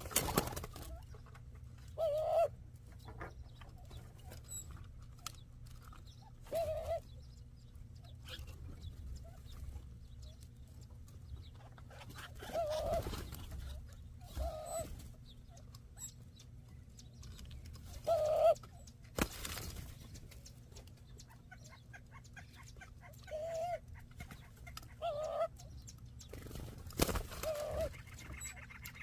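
Doves calling: short, low, clucking notes that come one or two at a time every few seconds, with a few knocks and rustles between them.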